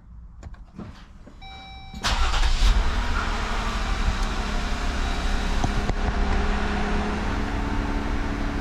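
A brief electronic tone, then about two seconds in the 2018 Jeep Wrangler's 3.6-liter V6 engine is started and settles into a steady idle.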